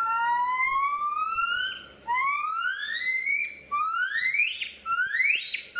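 Gibbon calling: a series of rising, whistle-like notes, the first long and slow, the later ones shorter and coming faster and faster.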